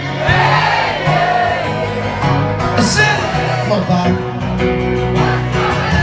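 Live pub band playing amplified music: electric guitar and bass with singing over a steady beat.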